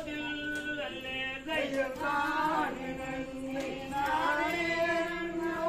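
Singing of a Valli Kummi folk song to accompany the dancers, in long held notes that bend up and down in pitch.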